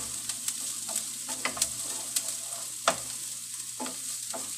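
Chopped garlic and onion sizzling in hot oil in a frying pan, with a wooden spatula scraping and tapping against the pan as they are stirred. One tap about three seconds in is louder than the rest.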